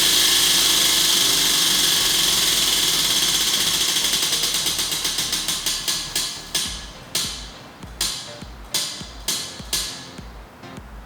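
Prize wheel spinning, its pointer clicking rapidly against the pegs. The clicks slow steadily and spread out into a few separate ticks near the end as the wheel comes to rest.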